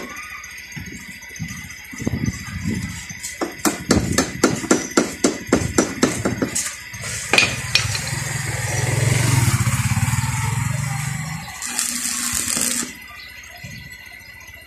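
Arc welding on a motorcycle's tubular steel rear rack: a run of quick, even taps, about four a second, as the electrode is struck against the metal, then the arc catches with a sharp crack and crackles with a low hum for a few seconds before stopping. A short burst of high hiss follows.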